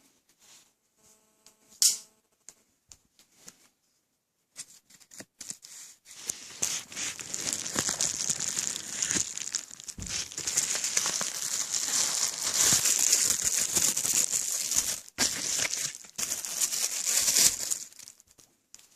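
Packaging being crinkled and torn open by hand: a few scattered clicks and rustles, then a long run of dense crinkling from about six seconds in until near the end.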